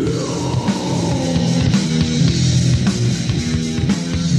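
Death metal demo recording: distorted electric guitars riffing over a drum kit, with a high note sliding down in pitch over the first two seconds.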